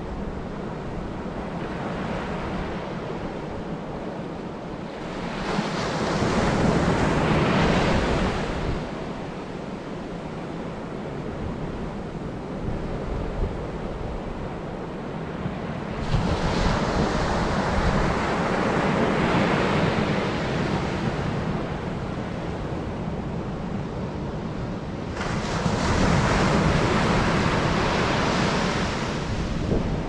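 Surf breaking and washing up a sandy beach, swelling three times as waves roll in and hiss up the sand, over a steady low rumble of strong onshore wind buffeting the microphone.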